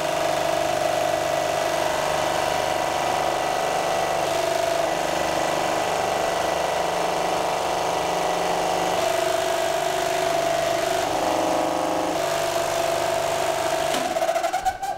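Steady hum of a running workshop machine's electric motor, with held tones that shift slightly every few seconds. It cuts off suddenly just before the end.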